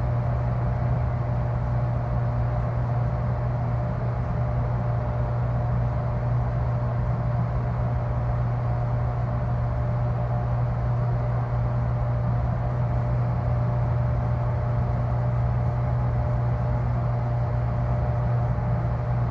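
Freezer unit's deep mechanical drone, a steady low hum with a faint thin higher tone over a hiss, unchanging throughout.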